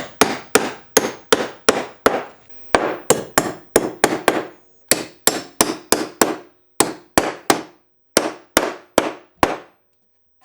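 A hammer striking, in quick runs of about three blows a second with short pauses between the runs. Each blow rings briefly.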